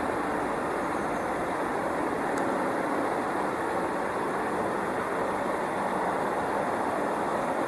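Steady rushing background noise with no woodpecker calls or drumming, and one faint click a little over two seconds in.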